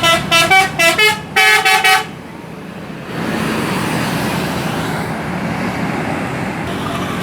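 Bus 'telolet' horn, a Basuri multi-tone musical air horn, playing a quick run of short notes of changing pitch that stops about two seconds in. About three seconds in, the steady rush of a passing vehicle's engine and tyres rises and holds.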